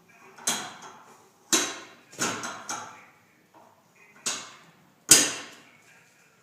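Sharp knocks and clanks from working a Jeep tire off its wheel rim on a manual tire changer: six hard strikes in uneven succession, the last the loudest.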